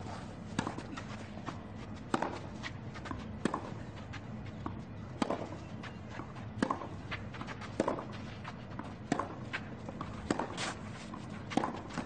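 Tennis ball struck back and forth by rackets in a baseline rally: about nine sharp pops, one every second and a half or so.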